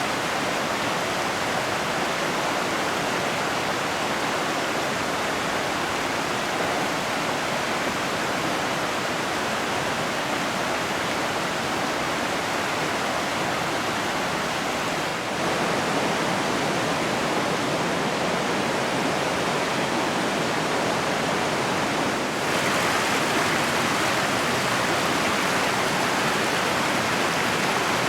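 Mountain river rushing over rocks: a steady, loud wash of water. It gets slightly louder after a brief dip about halfway through, and again a little later.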